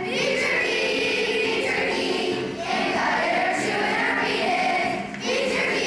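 Elementary school children's choir singing together, with short breaks between phrases about halfway through and near the end.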